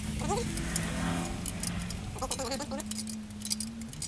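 Light metallic clinks and ticks of hand-wrench work on the engine's fan bolts, over a steady low hum. A few short whines rise and fall.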